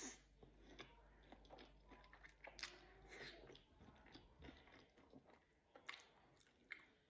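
A person chewing crispy fried chicken tenders: faint, irregular crunches and wet mouth clicks.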